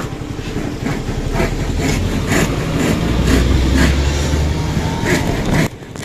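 A heavy vehicle's engine rumbling past on the road, building to its loudest about three to four seconds in. Over it are short, rhythmic strokes about twice a second. The sound cuts off abruptly near the end.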